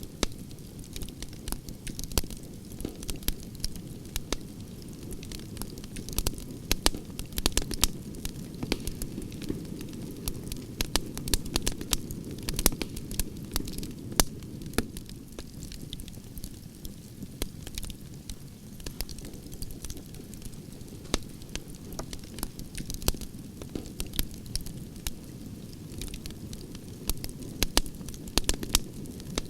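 Campfire of burning logs crackling and popping over a steady low rumble of flame, with many sharp pops, thickest in the first half.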